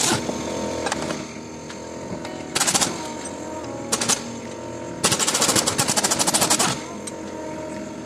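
Air-powered wrench rattling on a bolt in short bursts: a brief burst about two and a half seconds in, a short blip around four seconds, then a longer burst of about a second and a half.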